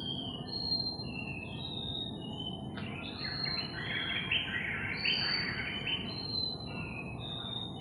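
Wild birds singing: a series of clear whistled notes, short and slightly gliding, with a dense burst of warbling chatter starting about three seconds in and lasting about three seconds. A thin steady high hiss runs underneath.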